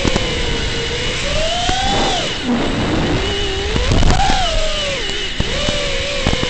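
FPV quadcopter's motors and propellers whining, the pitch swooping up and down with the throttle: it climbs about two seconds in, drops sharply just after, and climbs again around four seconds.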